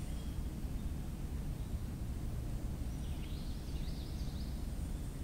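A bird chirping in a short run of quick calls about three seconds in, over a low steady rumble.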